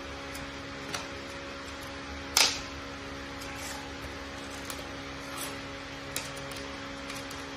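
A few light clicks and knocks, with one much louder sharp click about two and a half seconds in, over a steady electrical hum and hiss.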